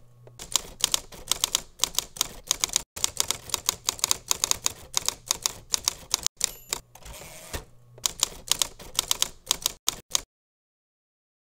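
Typewriter sound effect: keys clacking in quick, uneven strokes, stopping abruptly about ten seconds in.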